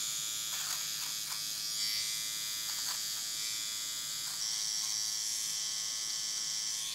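Philips OneBlade electric trimmer running with a steady buzz as its oscillating blade is drawn through beard hair on the cheek, with a few faint clicks as it catches hairs.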